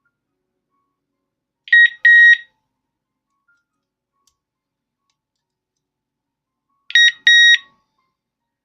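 Digoo DG-ROSA wireless alarm siren unit beeping twice over: two pairs of beeps about five seconds apart, each pair a short beep followed by a slightly longer one, at one steady high pitch.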